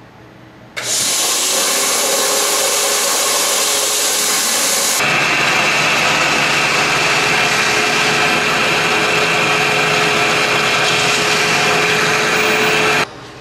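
Shop-vac blower switched on about a second in and running steadily, a loud rush of air with a steady whine, forcing low-pressure air through the car's cooling system to blow the heater core and radiator out through the open drain valve. The sound changes in tone about five seconds in and cuts off suddenly near the end.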